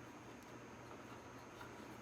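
Near silence: faint steady hum with a couple of faint light clicks from small handling of the wiring.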